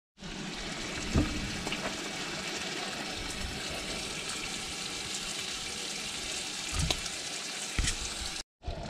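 Bacon frying in a pan: a steady sizzling, crackling hiss with a few soft knocks.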